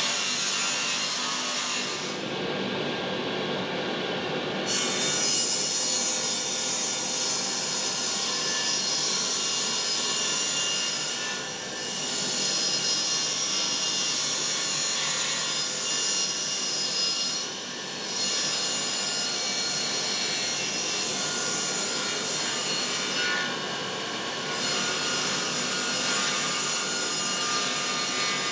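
Power saw cutting wood, running continuously with a few short dips between cuts.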